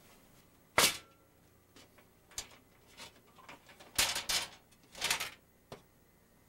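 Sharp knocks and clatter of a Coleman stove's metal lid and hinged side panel being handled on a wooden workbench: one loud knock about a second in, then lighter knocks and two short bursts of clatter.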